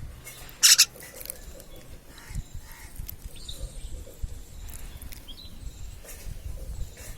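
Baby bird giving faint short chirps, with one brief loud burst of noise just under a second in and low rumbling handling noise throughout.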